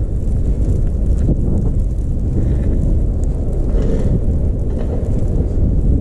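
Blizzard wind buffeting the microphone: a loud, steady low rumble that rises and falls with the gusts.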